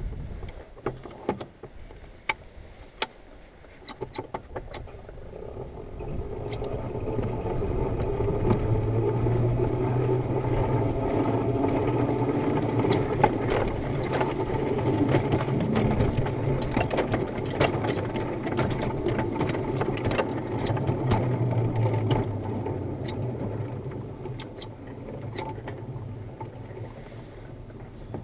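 Small ride-on backyard train hauling a car of firewood logs along its track: its motor runs with a steady hum that builds about six seconds in and eases off near the end, with sharp clicks from the wheels on the rails throughout.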